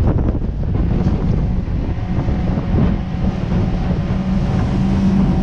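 Heavy wind buffeting the microphone on a speeding open skiff, with water rushing past the hull and the outboard motor's steady drone coming through more clearly from about halfway.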